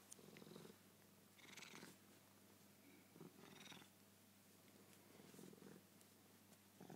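Oriental cat purring faintly, close by, the purr swelling and fading with each breath about every two seconds.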